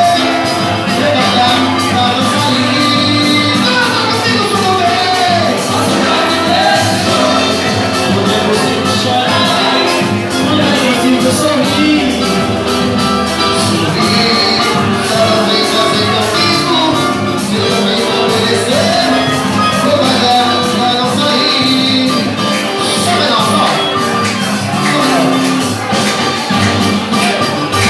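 Live band music with steady percussion and melodic instrument lines, played as an instrumental stretch between sung verses.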